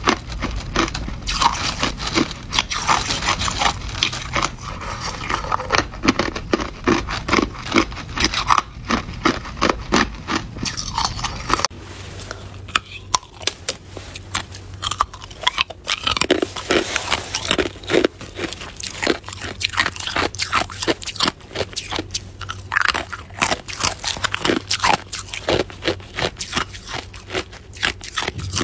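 Hard clear ice cubes being bitten and crunched, a dense run of sharp, rapid crunches that goes on throughout. The sound changes character suddenly about twelve seconds in, where the recording cuts.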